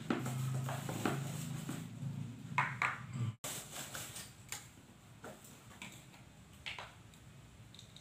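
Small plastic jars and containers clicking and knocking as they are taken from a bag and handled on a tiled floor, with a few scattered taps. A low steady hum runs underneath and cuts off suddenly about three and a half seconds in.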